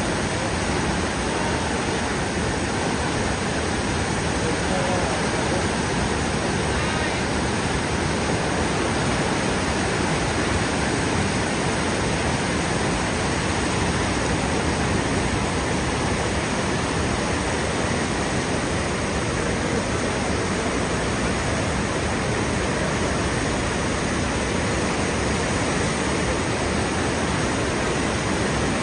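Niagara Falls pouring: a steady, unbroken rush of falling water.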